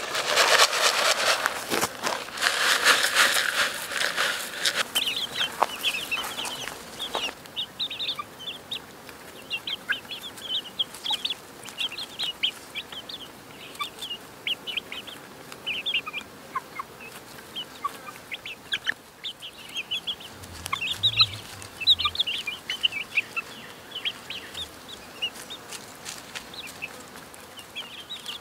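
Young chickens peeping and clucking while they peck at feed from a log trough, a stream of short high chirps. Loud rustling and scratching fill the first several seconds.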